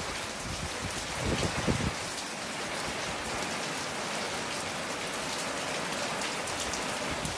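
Heavy rain falling steadily in a thunderstorm, an even hiss with scattered drop ticks, and a brief low rumble about a second and a half in.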